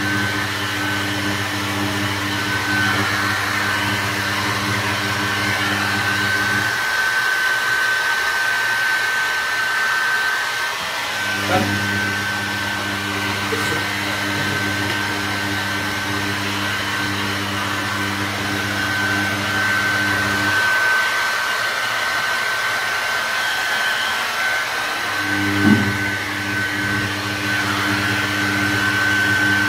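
Handheld hair dryer blowing steadily on a wet dog's fur, with a steady high whine over the rush of air. A lower hum drops out twice for a few seconds and comes back, each time with a short click.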